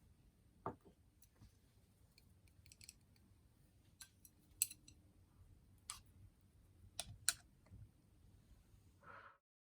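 Faint, scattered light clicks and taps, with a few sharper ticks between about four and seven and a half seconds in; the sound cuts off just after nine seconds.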